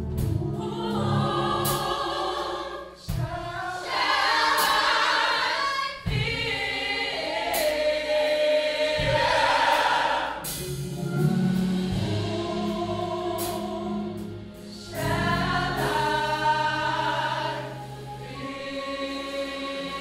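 Large gospel choir singing in many-voiced harmony, held notes in phrases with short breaks between them.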